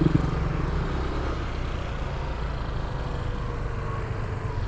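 Steady engine and road noise of a vehicle driving along a street in traffic.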